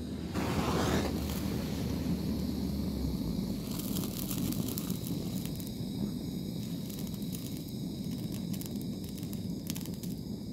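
Handheld gas blowtorch flame running steadily with a low rushing sound. From about four seconds in it is joined by faint crackling and ticking from the candle wax melting under the flame.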